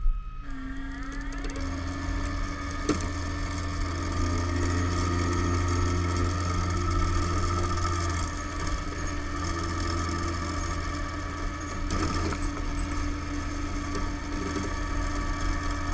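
Flatbed tow truck's winch pulling a car out of snow under load: a steady mechanical whine with a low hum, rising in pitch as it starts and then holding steady. A few sharp clicks or creaks from the straining rigging come through.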